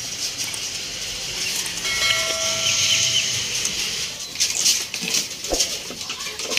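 Birds chirping and chattering in the background, with a brief held tone about two seconds in and a few light taps as carrot pieces are dropped onto concrete a little after four seconds.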